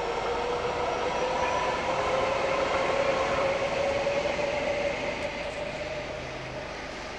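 Metro Gold Line light-rail train passing, its running noise swelling and then fading as it moves away. A faint whine slowly rises in pitch underneath.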